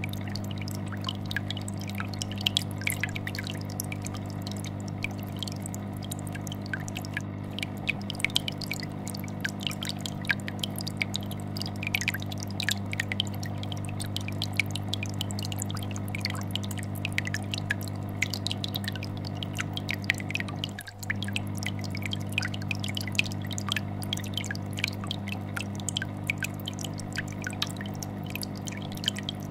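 Aquarium air bubbler bubbling, with a rapid, irregular patter of bubbles breaking at the water surface, over the steady low hum and vibration of a fish tank filter. The sound dips briefly about two-thirds of the way through.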